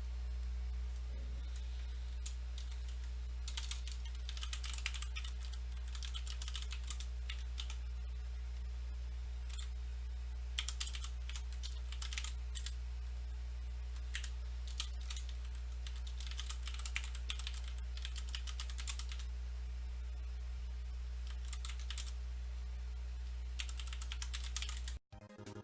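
Computer keyboard typing in bursts of keystrokes over a steady low hum; the sound cuts off just before the end.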